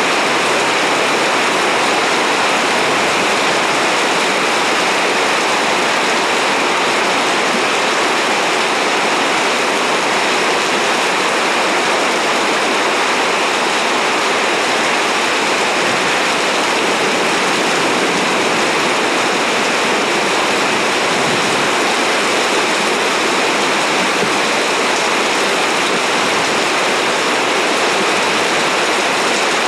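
Heavy rain coming down in sheets, a loud, steady hiss of a downpour with no thunder claps.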